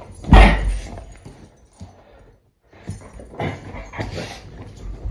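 Scuffling and handling sounds of a man play-wrestling with a dog. A loud heavy thump comes about half a second in, and rough rustling scuffles follow later.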